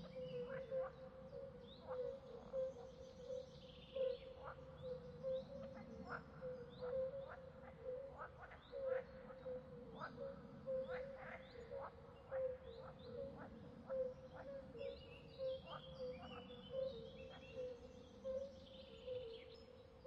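Swamp ambience: a dense chorus of frogs calling on a steady pitch in quick pulses, with many short sharp calls and birds chirping over it.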